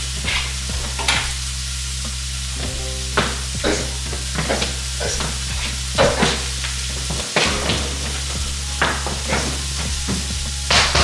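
A utensil stirring and scraping in a pot on the stove, with repeated short knocks about one or two a second over a steady low hum.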